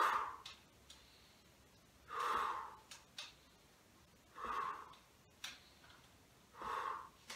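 A man breathing deeply through his mouth in a paced rhythm, four audible breaths about two seconds apart, with a few faint clicks in between.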